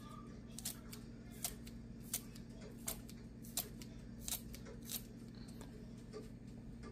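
Kitchen scissors snipping a spring onion into pieces, one crisp snip about every three quarters of a second, stopping about five seconds in.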